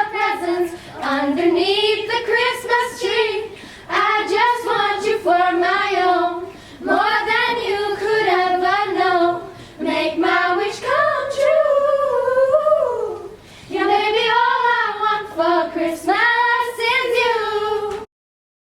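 Children singing a song in phrases a few seconds long with short breaths between; the singing cuts off abruptly near the end.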